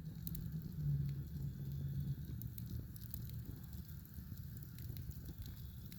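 Small fire of pine kindling and sticks burning, with scattered faint crackles and pops over a low rumble.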